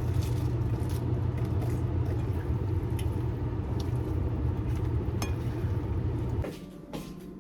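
Steady low rumble with scattered light clicks and clinks, cutting off suddenly about six and a half seconds in.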